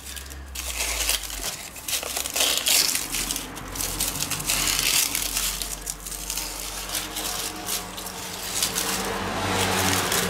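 Dry, charred corn husks crackling and tearing as they are pulled back by hand from a grilled corn cob, in irregular rustling bursts.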